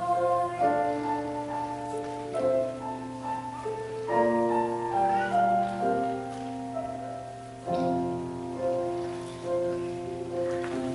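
Slow music led by piano: held chords that change every second or two, some struck fresh and fading.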